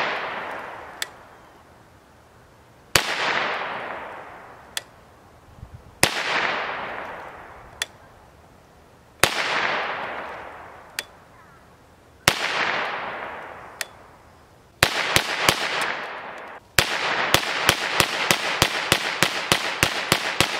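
Trailblazer Pivot 9mm carbine firing 115-grain FMJ: four slow aimed shots about three seconds apart, each followed by a long fading echo and a faint click, then a quick string of about five shots and, near the end, rapid fire at about three shots a second.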